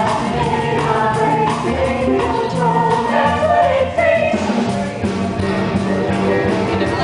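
Band music with singing voices, playing steadily and loud.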